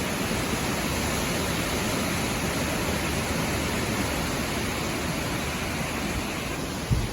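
Heavy storm rain and wind, a steady even hiss. A gust hits the microphone with a low rumble right at the end.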